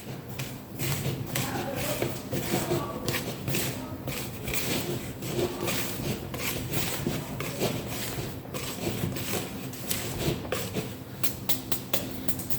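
Irregular light taps, knocks and rustling from handling a mixing bowl and dry ingredients, over a steady low hum.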